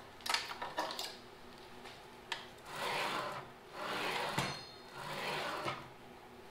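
Mastercraft 10-inch compound sliding mitre saw head sliding back and forth on its rails with the slide lock undone: a few light clicks, then three rubbing strokes of about a second each.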